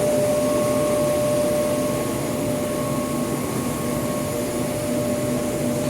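Air-floating glass table's blower running steadily: an even rush of air with a constant whine.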